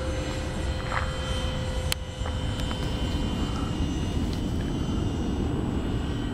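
Electric ducted fans of a four-engine RC Airbus A380 model running steadily in flight: a steady whine over a low rushing haze.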